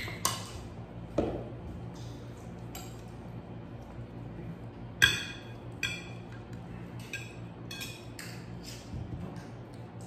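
Spoons and forks clinking against ceramic dinner plates as people eat: a scatter of light, irregular clinks, the sharpest and most ringing one about five seconds in.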